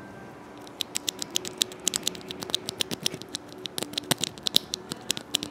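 Typing on a Machinike K500 mechanical keyboard with brown switches: a quick, uneven run of keystroke clicks, several a second, starting about a second in. The case has no foam inside, and its typing sounds hollow.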